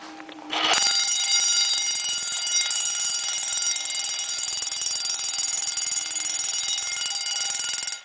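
Amseco 8-inch fire alarm bell ringing continuously, its striker rapidly hammering the gong. The ringing starts about half a second in, holds steady and loud, and cuts off abruptly near the end.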